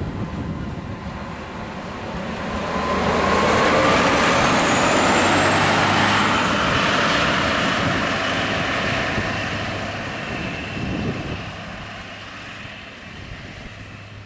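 Diesel sugar cane locomotive hauling full cane bins passes close by: engine and rail rumble swell to their loudest a few seconds in, with tones sliding in pitch as it goes past, then fade as the train moves away.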